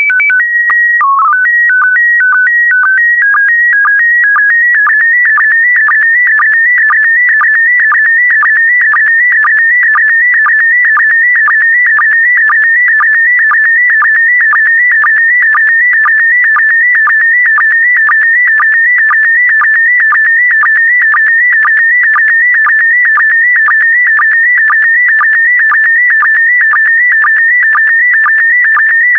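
Slow-scan TV (SSTV) transmission in PD120 mode. Electronic tones open with a few seconds of header tones stepping between fixed pitches. The image signal follows: a warbling tone near 2 kHz, broken by a short low pulse about twice a second, one for each pair of scan lines.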